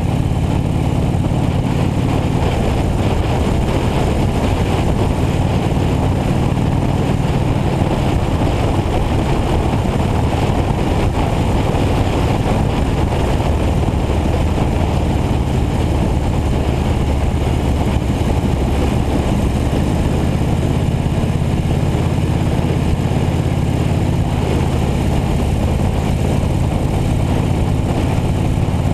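Motorcycle engine running steadily at cruising speed on the open road, mixed with a heavy rush of wind over the bike-mounted microphone. The engine note and wind hold even throughout, with no clear shifts or revs.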